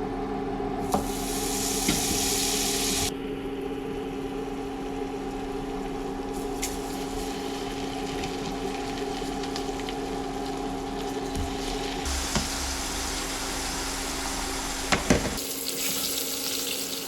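Kitchen sounds while cooking at a stove: a steady hiss over a constant hum, with a louder burst of hiss about a second in and a couple of knocks near the end.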